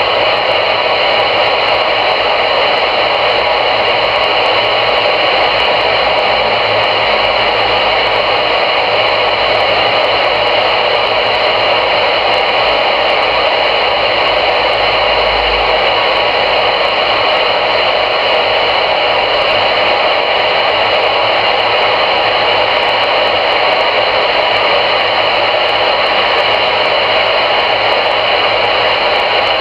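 CRE 8900 CB radio receiver on channel 22 putting out a steady hiss of static from its speaker, with no voice coming through.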